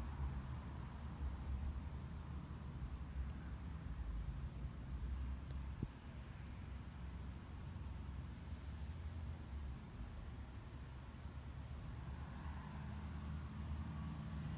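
Insects droning steadily in a high-pitched, finely pulsing buzz, with a low rumble underneath.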